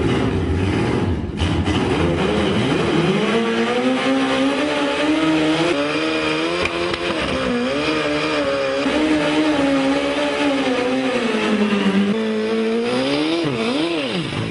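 Turbocharged Suzuki Hayabusa inline-four motorcycle engine rumbling, then revved up and held at high revs with a wavering pitch. Near the end it gives a quick sharp rev up and back down.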